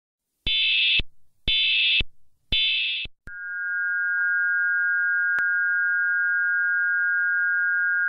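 Emergency Alert System header: three short bursts of screeching digital data tones, each about half a second long, followed a little after three seconds in by the steady two-tone attention signal.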